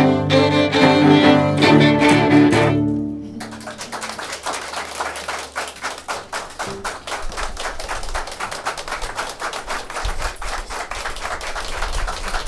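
A string quartet plays its closing chords, which end about three seconds in. Audience applause follows straight after.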